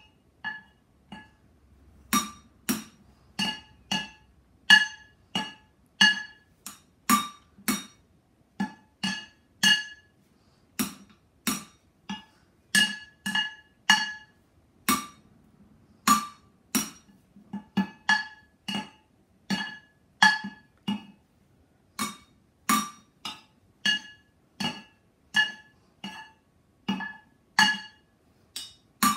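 Wooden drumsticks beating a steady rhythm on upturned cooking pots, about two strikes a second. Each hit rings with a bright metallic clang. A few softer taps come just after the start before the full beat comes back at about two seconds.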